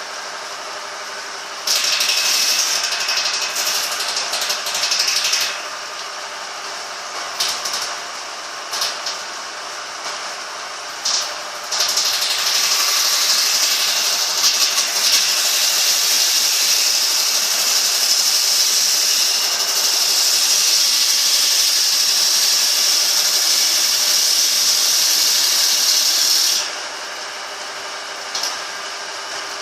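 Sawmill saw running steadily, then cutting into wood with a loud hissing rasp: one cut of a few seconds about two seconds in, several short bites, then one long cut of about fifteen seconds that stops abruptly near the end.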